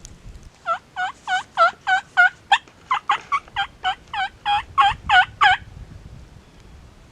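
Turkey yelping: a run of about sixteen quick, evenly spaced calls, roughly three a second, lasting some five seconds.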